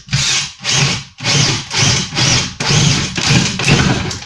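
Power drill boring a large bit through a cabinet's side panel, run in several short spurts with brief pauses, the bit breaking out through the far face near the end.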